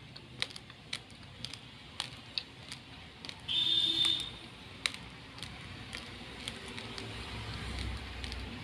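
Raw, hard long-grain rice being chewed, with sharp irregular crunches about once or twice a second. A short shrill tone sounds about three and a half seconds in and is the loudest thing, and a low rumble builds near the end.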